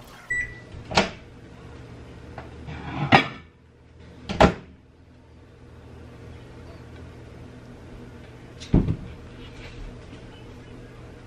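Kitchen knocks and clatter from cupboard doors and dishes being handled: four sharp bangs a few seconds apart, the loudest two close together about three and four and a half seconds in. A steady low hum runs underneath.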